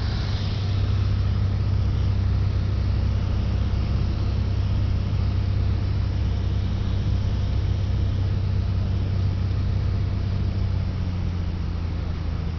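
Small single-engine plane's piston engine and propeller droning steadily, heard from inside the cabin. The engine note drops slightly in pitch and loudness near the end.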